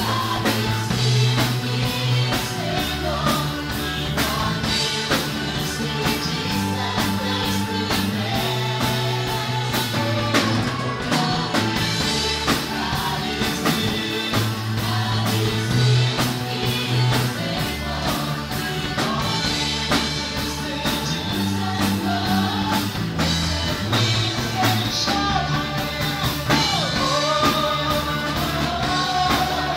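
Live band playing an upbeat song with a steady drum-kit beat, electric bass, acoustic guitar and a Roland Juno keyboard, with a voice singing over it.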